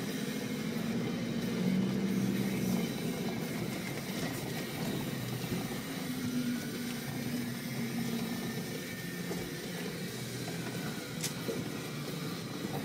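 Off-road vehicle heard from inside the cabin while driving along a dirt forest track: a steady engine hum whose note rises and falls. A single sharp click about eleven seconds in.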